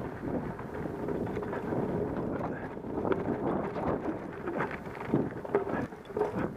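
Wind rushing over the microphone of a camera riding fast down a dirt forest trail, mixed with tyre noise on the dirt. Irregular rattles and knocks come through as the mountain bike goes over bumps and roots.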